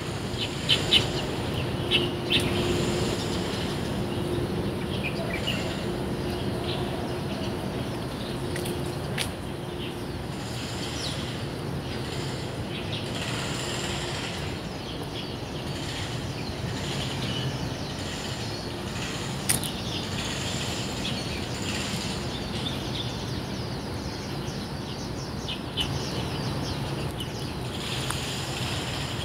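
A flock of small birds chirping and calling in the trees, many short overlapping chirps, over a steady outdoor background rumble.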